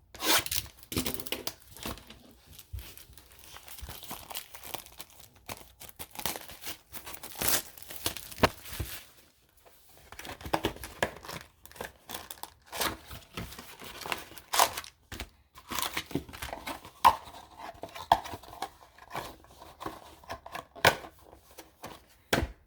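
Plastic wrapping on a trading card hobby box being torn and crinkled open, with irregular crackles and sharp clicks of handling throughout.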